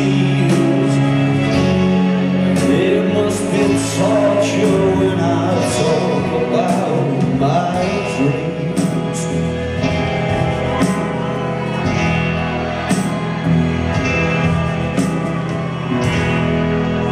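Live rock band playing at full volume: electric guitar, bass and drum kit with repeated cymbal strikes over sustained chords.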